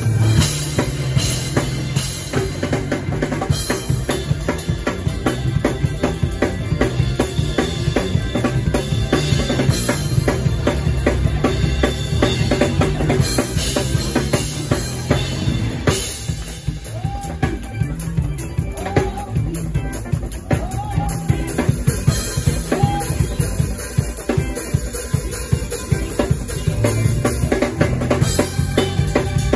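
Acoustic drum kit played hard and busy, with rapid kick, snare and cymbal strokes, over sustained low bass notes of a live band.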